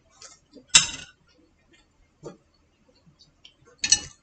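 A few sharp clicks and knocks of tableware being handled: a glass jar and its lid, and wooden chopsticks picked up from a plate. The loudest knock comes about a second in, and a quick run of clicks near the end.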